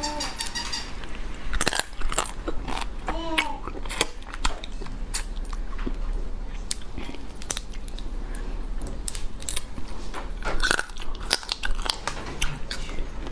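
Cooked crab shell cracking and crunching as the legs are pulled apart and bitten, with close-up chewing, in a run of sharp, irregular clicks and cracks.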